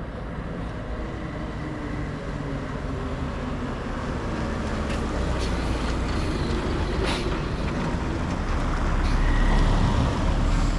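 Road traffic passing close by: a small goods truck drives past, then a car comes up alongside, the engine and tyre noise growing steadily louder toward the end.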